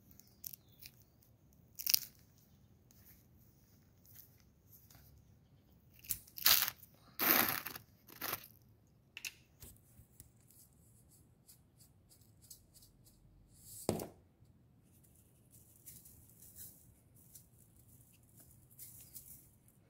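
Salt being handled and sprinkled: a few short, sharp handling noises, then near the end a faint hiss of salt grains falling onto raw chicken pieces in a nonstick cooking pot.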